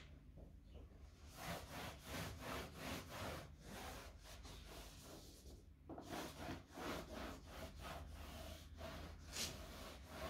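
Rag wiping a watery black paint wash across a painted wall, a faint series of rubbing strokes at about three a second, with a short pause a little past halfway.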